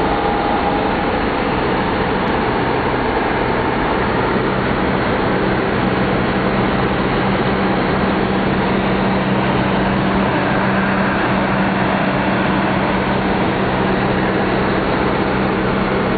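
Cabin noise of a 1967 Opel Rekord C Caravan on the move: its engine hums at a steady, unchanging pitch over the rumble of road and wind.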